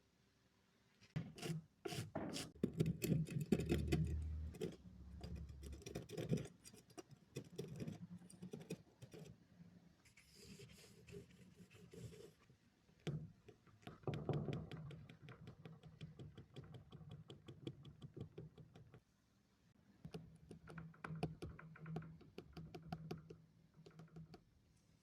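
Small tools scratching and clicking at an iPhone 16 Pro Max's charging port as dirt is scraped out of it, in irregular strokes that are busiest in the first few seconds and thin out toward the end.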